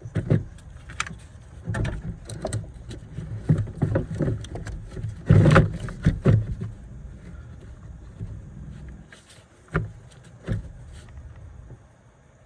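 Irregular knocks, clunks and clicks of hands and tools working on car parts, the loudest about five and a half seconds in, with a few more near ten and eleven seconds.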